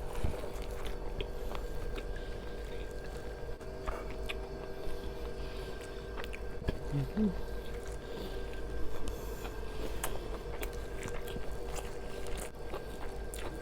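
A person biting and chewing fried masala chicken, with small scattered crunches and clicks over a steady hum. A brief murmur of the voice comes about halfway through.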